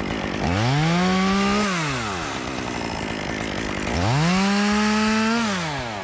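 Chainsaw revved up twice, each time climbing to full throttle, holding there for about a second and then dropping back to idle.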